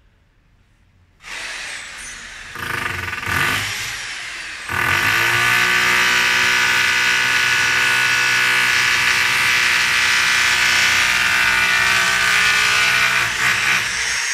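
Large electric drill boring holes into concrete stairs. It starts about a second in, runs unevenly at first, then settles into a loud, steady drilling from about five seconds in, with a brief dip near the end.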